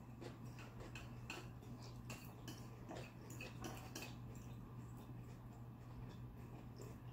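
Faint, irregular clicks and scrapes of plastic forks picking at salad in clear plastic takeout containers, over a low steady hum.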